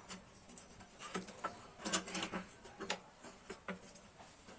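Irregular metallic clicks, clinks and knocks of a motorcycle exhaust header pipe and tools being handled as the pipe is worked loose and pulled out, with a cluster of louder knocks about two seconds in.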